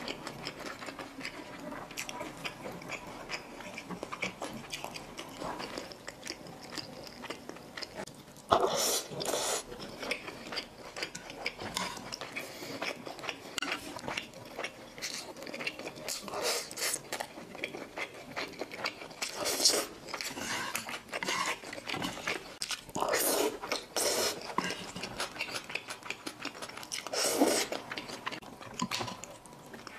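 Close-miked wet chewing of thick, saucy Xinjiang stir-fried rice noodles: a steady run of small mouth clicks and smacks, broken by several louder slurps of the noodles.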